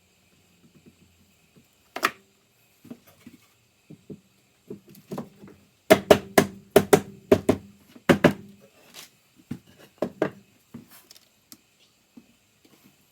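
Wood and tools being handled at a workshop bench: irregular knocks and thuds, with a quick run of about ten sharp knocks in the middle.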